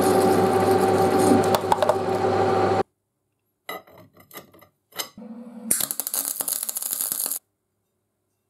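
A metal lathe runs steadily with a humming tone as it turns a steel part, then stops abruptly. After that come a few light metallic clicks and knocks of parts being handled, and a short burst of noisy crackling near the end.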